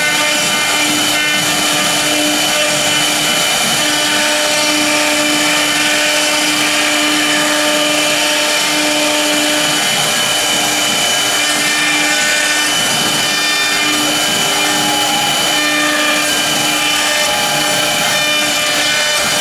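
Two spindles of an ELE2040 multi-spindle CNC router carving MDF: a steady spindle whine over the hiss of the bits cutting the board.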